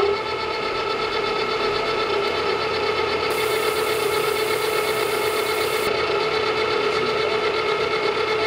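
Engine lathe running steadily with a constant gear whine, turning the shank of a titanium bolt. A higher hiss joins in for a couple of seconds around the middle.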